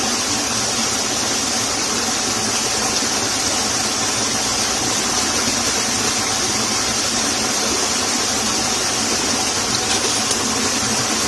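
Steady rushing of water flowing in a small irrigation ditch, an even continuous hiss with no breaks.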